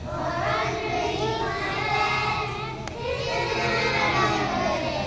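A group of young children singing a Halloween song together in unison.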